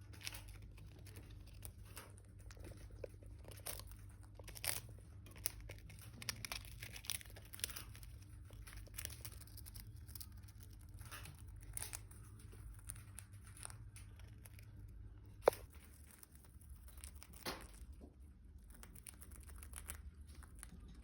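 Indian ringneck parrots biting and crunching corn crackers in their beaks: irregular sharp crunches and crackles, the loudest about fifteen seconds in.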